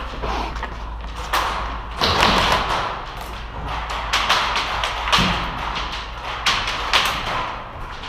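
Irregular thumps and taps with bursts of rustling, as an airsoft player moves quickly through an indoor course with rifle and gear.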